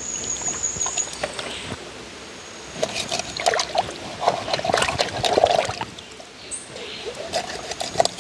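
Water sloshing and splashing in a metal pot as pieces of raw chicken are rubbed and turned over by hand in lime water, in irregular splashes that are busiest midway.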